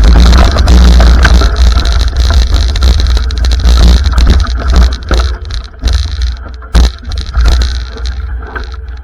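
Loud, distorted wind buffeting and rumble on the camera microphone, with rattles and knocks as from a camera riding along a rough trail. The rumble eases after about five seconds, and a sharp knock comes near seven seconds.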